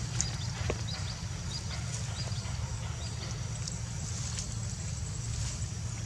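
Outdoor ambience: a steady low rumble with faint, short high-pitched chirps and a few sharp clicks scattered through it.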